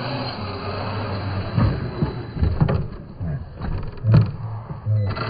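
Small electric RC truck running on concrete, a steady whirring haze, then from about one and a half seconds in a series of loud, low thumps and knocks.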